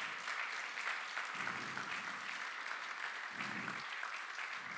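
A congregation applauding: many hands clapping together in a steady, dense patter.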